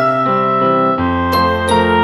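Background music: a light electric piano tune with a bass line.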